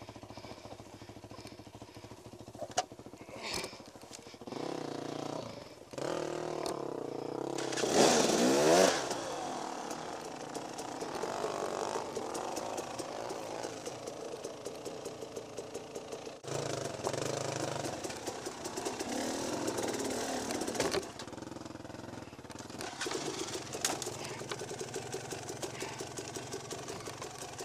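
Dirt bike engine running and revving as the bike is ridden over rocky and sandy trail, with one hard rev rising and falling about eight seconds in. Scattered knocks come from the bike over rough ground.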